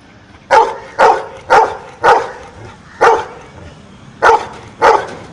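A trained dog barking out the answer to a sum it was asked, one bark per count: seven sharp barks, mostly about half a second apart, with a longer pause midway.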